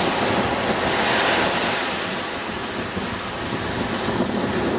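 Surf washing onto a sandy beach, with wind buffeting the microphone. The wash is fullest in the first two seconds, then eases a little.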